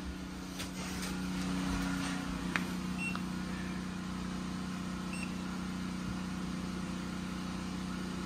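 A steady mechanical hum with a low drone, with a few handling clicks in the first seconds and two short, faint high beeps about three and five seconds in.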